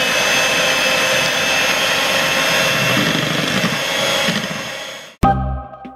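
Electric hand mixer running steadily, its beaters whirring through cake batter in a bowl, then fading out and stopping about five seconds in. Music starts just after.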